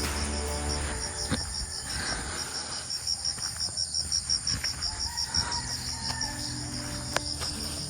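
Insects chirring in a fast, even pulse, several pulses a second, high-pitched and steady.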